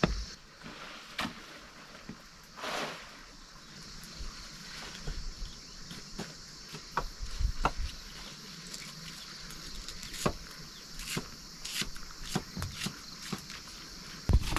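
A steady high insect hum, with scattered light taps and rustles as leafy greens are handled and cut with a knife.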